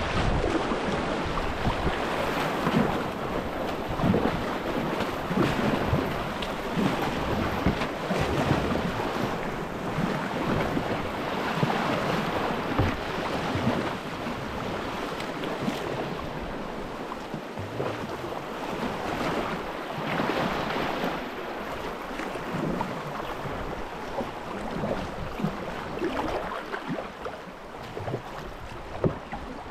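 Fast tidal current rushing and small waves breaking and splashing around a kayak, with wind buffeting the microphone. The water noise surges and eases unevenly throughout.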